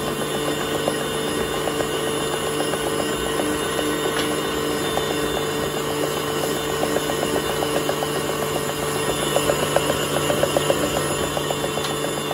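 Electric stand mixer running, its flat beater turning through thick cheesecake batter in a stainless steel bowl: a steady motor hum with a fast, even ticking over it, a little louder near the end.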